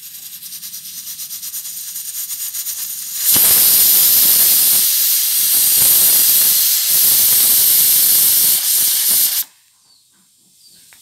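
Stovetop pressure cooker with a weight valve reaching pressure: steam hisses and sputters in rapid pulses under the weight, growing louder. About three seconds in, the weight lifts and the cooker blows off steam in one loud blast for about six seconds, which cuts off suddenly as the weight drops back.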